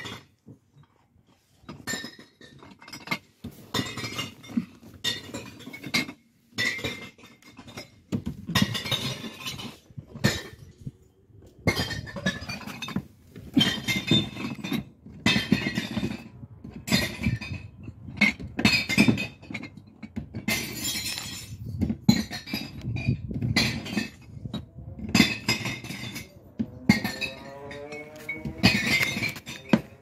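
Glass bottles dropped one after another into a bottle bank, each clinking and smashing against the glass already inside, roughly one a second.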